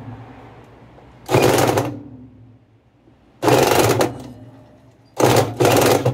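Cordless impact driver hammering in four short bursts on the wash basket's hub nut, each burst a rapid run of strikes.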